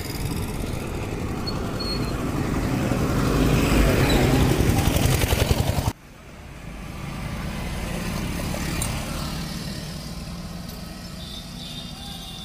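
Motor vehicle engine running close by, growing louder, then cutting off suddenly about six seconds in. A second vehicle then passes more faintly, swelling and fading away.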